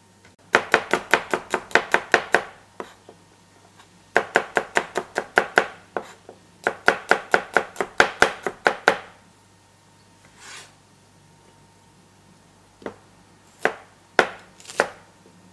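Chinese cleaver slicing garlic cloves on a plastic chopping board: three runs of quick, even chops, about six a second. Near the end come a few single chops as the cleaver cuts Brussels sprouts.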